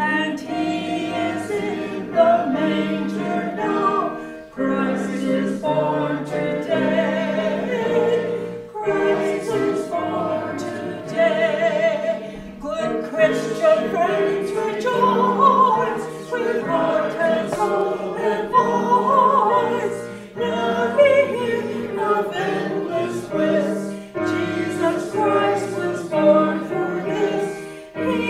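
A congregation singing a hymn together, many voices in unison, with keyboard accompaniment; the singing moves in phrases with short breaths between them.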